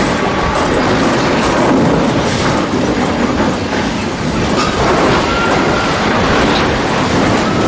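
Loud, continuous mechanical rumble and clatter of heavy machinery, with a brief high metallic squeal about five seconds in.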